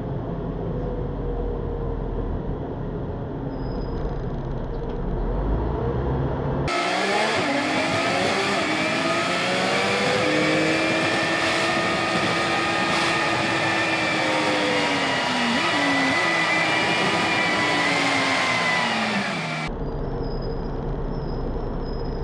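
Steady low rumble of a moving bus, broken about seven seconds in by a stretch of about thirteen seconds in which a vehicle's motor whine, several tones at once, rises and then falls as it speeds up and slows down. The rumble returns near the end.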